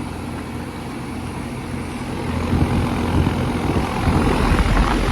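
Two Trane XB14 heat pump outdoor units running: a steady low hum from their reciprocating compressors under the rush of the condenser fans, growing louder about two seconds in.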